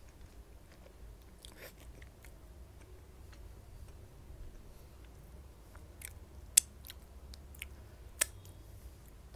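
Close-miked chewing of a pani puri (golgappa): soft, wet chewing with scattered small mouth clicks. Near the end come two sharp, louder smacks of the lips and fingers.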